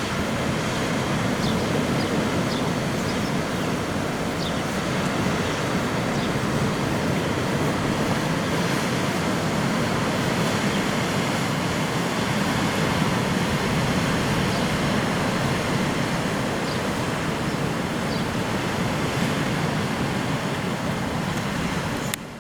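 Sea surf: a steady rush of waves washing in.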